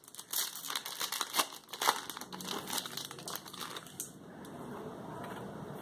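Foil wrapper of a Pokémon TCG booster pack crinkling as it is handled, in a run of quick, sharp crackles that thin out after about two seconds.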